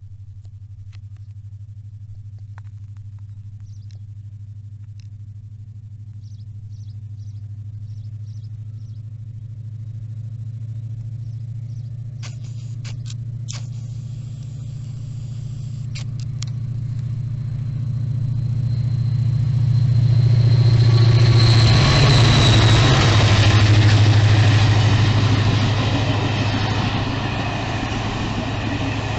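American-built diesel locomotive hauling a passenger train: its engine drone grows steadily louder as it approaches, is loudest a little past the middle, then eases off as the train runs past.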